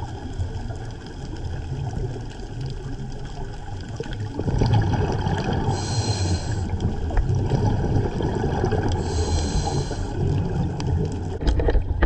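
Scuba diver breathing underwater through a regulator, heard muffled through the camera housing: a short hiss with each inhale about every three and a half seconds, and gurgling, rumbling exhaled bubbles between them.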